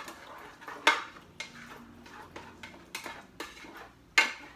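A cooking spoon stirring food in an Instant Pot's stainless steel inner pot, knocking and scraping against the pot in a run of sharp clacks, the loudest just under a second in and again near the end.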